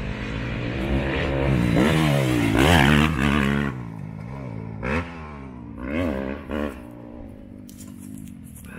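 Motocross bike engine revving hard, its pitch climbing and dropping through gear changes as it runs the track. It is loudest about three seconds in, then comes a few quick throttle bursts, and it fades to a lower drone near the end.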